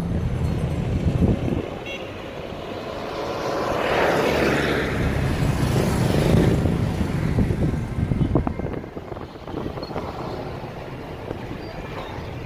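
Chery Tiggo 5x driving through city traffic, heard from inside the car: a steady low rumble of engine and road noise. Passing traffic swells from about three seconds in and fades away by about eight seconds.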